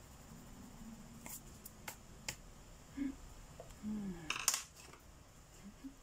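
Wooden coloured pencils clicking and clattering against each other as they are set down and picked out of a pencil holder. A few light clicks come first, then a louder clatter about four and a half seconds in.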